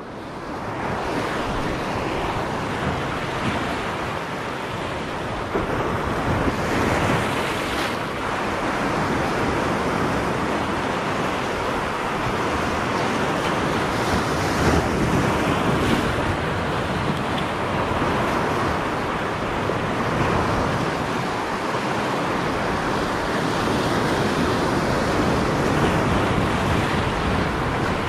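Sea surf breaking and washing over shoreline rocks, a steady rush that swells a little now and then.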